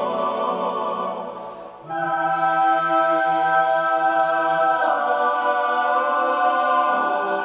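Slow music of long, held chords in choir-like voices. It dips briefly, and a new chord comes in about two seconds in; the chord changes again near five and seven seconds.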